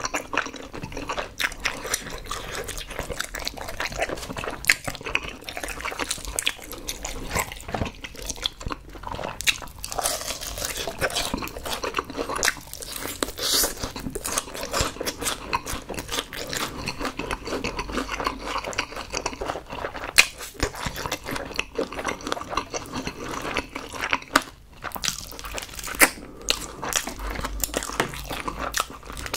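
Close-miked eating sounds: steady crunching, biting and chewing of crisp honey-glazed fried chicken, with bites pulled from a wing piece.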